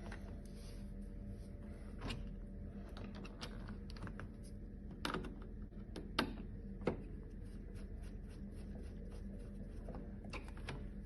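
Scattered light clicks and taps of hands fitting the plastic cover back onto a roller garage door's bottom-edge transmitter, with a few sharper knocks around the middle. A faint steady hum runs beneath.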